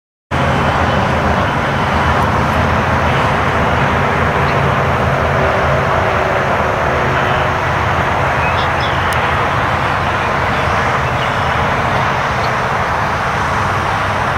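Twin DLE 35 single-cylinder two-stroke gasoline engines of a 1/8-scale C-47 radio-control model running steadily in flight, a constant drone that cuts in abruptly just after the start.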